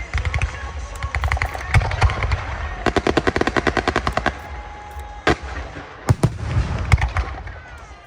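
Fireworks going off: fast strings of sharp cracks like a rapid-fire barrage, then several single heavier bangs, dying away near the end.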